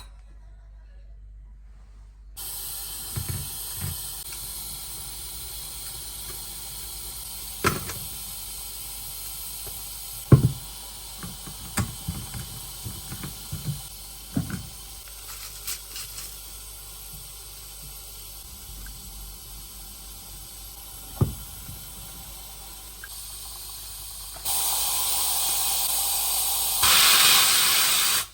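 A steady hiss starts a couple of seconds in, with scattered knocks and clinks over it, and grows louder twice near the end.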